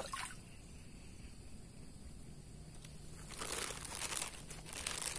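A crinkling rustle for about two seconds, starting about three seconds in, over a faint background hiss.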